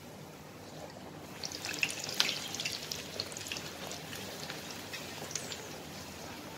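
A puri deep-frying in hot oil in a pan. The sizzling turns into a busy crackle with sharp pops about a second in, as the puri is turned over, then settles into a steadier sizzle.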